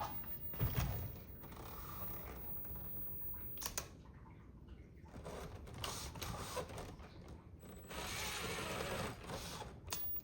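Small mechanical whirs and clicks from an RC rock crawler as it is handled and its steering servo and motor are worked in short spurts, with a longer whir near the end.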